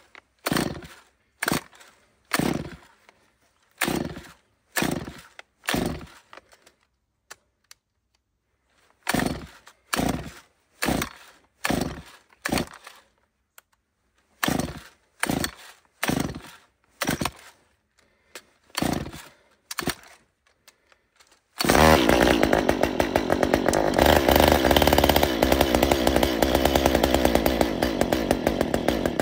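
Stihl MS193T top-handle chainsaw, a small two-stroke, being pull-started: about seventeen short yanks of the starter cord in three runs with short pauses between them, before the engine catches about three-quarters of the way through and runs steadily.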